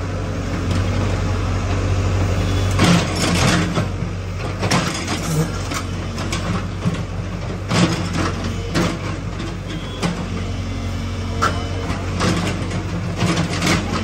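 Tata Hitachi EX70 excavator's diesel engine running steadily, with bursts of scraping and clattering as its steel bucket digs into rubble and soil, a few seconds in, around the middle and again near the end.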